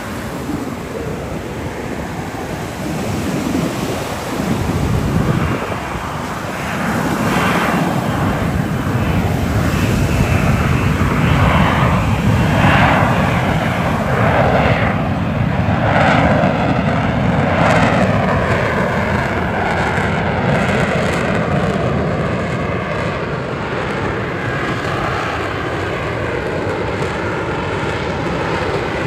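F-35B's F135 jet engine and shaft-driven lift fan running as the jet comes in and hovers. It is a loud, steady jet noise that grows louder a few seconds in. Through the middle, whining tones shift up and down in pitch.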